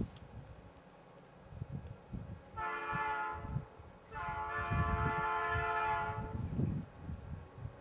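Air horn of a leading EMD SD40 diesel freight locomotive sounding twice, a short blast of about a second and then a longer blast of about two seconds, each a rich chord of several tones. An uneven low rumble runs underneath.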